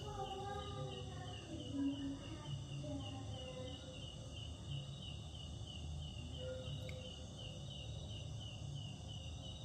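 An insect, cricket-like, chirping in a fast, even, high-pitched rhythm.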